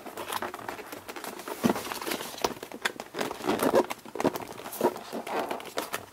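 Cardboard retail box being worked open by hand: irregular knocks, scrapes and rustles as the end flap and pull tab are pried and tugged.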